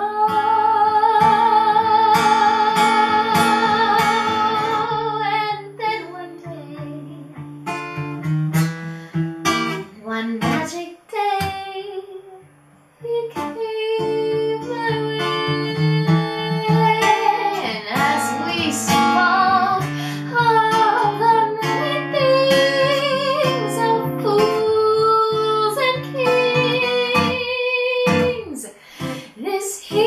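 A woman singing a slow ballad, accompanied by an acoustic guitar. She holds a long note with vibrato over the first few seconds. The music almost stops for a moment about twelve seconds in, then the singing and guitar carry on.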